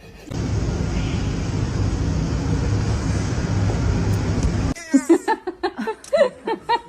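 A steady low rumble with hiss for about four and a half seconds, cutting off suddenly, followed by a run of short pitched vocal sounds.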